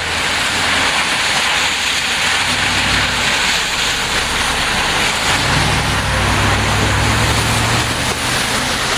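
Heavy rain pouring down in a steady loud hiss. A low steady hum comes in a little past halfway.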